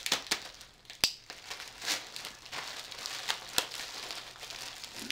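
Plastic packing wrap and tape crinkling and crackling as they are pulled off a packed item. Scattered sharp clicks run through it, the loudest about a second in.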